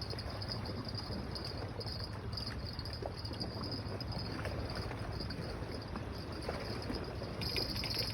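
Insects chirping in a high, pulsing rhythm, growing louder and more continuous near the end, over a steady low rumble.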